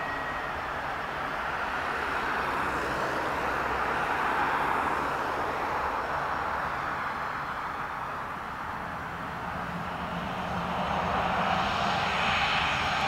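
Airbus A319 jet airliner's twin engines running at low thrust as it taxis and turns on the runway: a steady whine and rush that grows louder near the end as the engines swing toward the listener.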